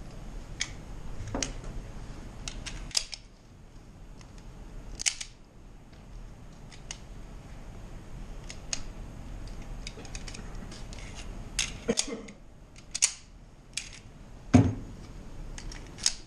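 Scattered sharp clicks and knocks from handling an STI Trojan pistol, metal on metal with a few knocks against a plastic barrel, with a louder knock near the end. No shots are fired.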